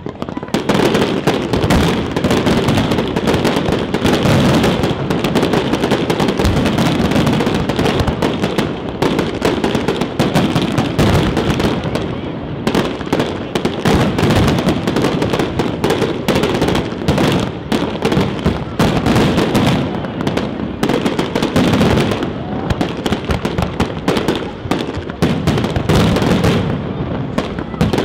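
Aerial fireworks display: a dense, unbroken barrage of shell bursts and crackle, many sharp reports a second.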